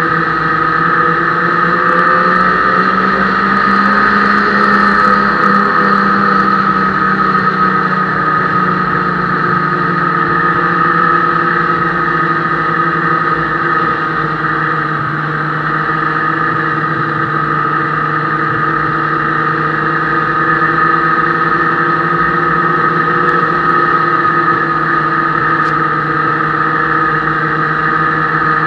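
Ski-Doo snowmobile engine running steadily under way on a trail, its pitch rising slightly a few seconds in and settling back a little lower around eight seconds in.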